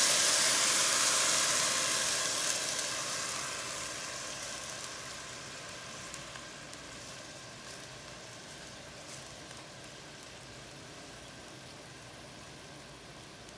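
Rice sizzling in hot ghee in a pan, loud at first and dying down steadily over the first eight seconds or so to a faint, even hiss.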